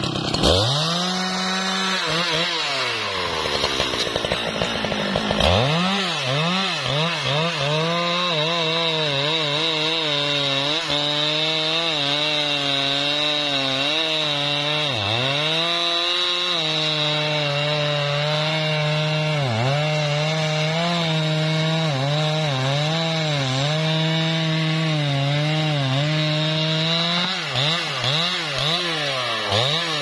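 Husqvarna 395 XP two-stroke chainsaw cutting through a trembesi (rain tree) trunk. The engine drops toward idle in the first few seconds, revs back up about five seconds in, then holds high revs with its pitch sagging and recovering as the chain bites into the wood, dipping sharply twice. It winds down near the end.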